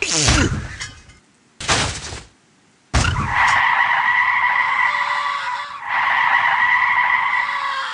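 Cartoon sound effects of a car skidding. A short cry falls in pitch and is followed by a brief whoosh. About three seconds in a sudden hit starts a long, steady tyre screech, broken once briefly in the middle.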